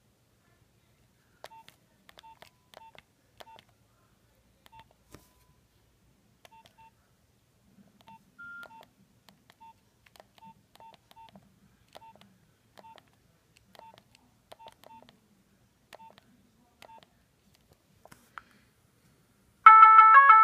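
Nokia 3595 mobile phone's key tones: short single-pitch beeps with faint button clicks, at irregular intervals as the keypad is pressed. Just before the end, a loud ringtone with several notes at once starts playing.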